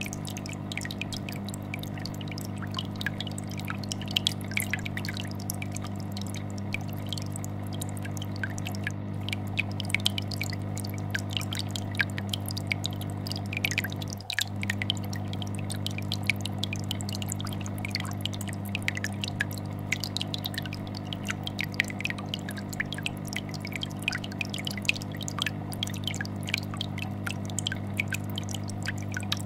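Aquarium air bubbler and fish tank filter: a steady low vibrating hum from the filter under a constant irregular patter of small bubbles popping and dripping at the water surface. The sound dips briefly about halfway through.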